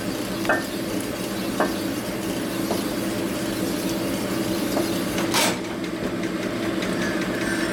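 Sunnen honing machine running, its mandrel spinning in the bearing bore of an aluminium Harley Evolution crankcase half as the case is worked back and forth, honing the bore about two tenths of a thousandth bigger. A steady machine hum with a few light clicks, and one sharp knock about five and a half seconds in.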